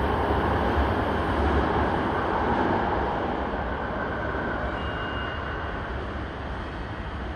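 Toei 5300-series electric train (set 5315F, a fifth-batch car built by Nippon Sharyo) running with a steady rumble that slowly fades as it pulls out of the station.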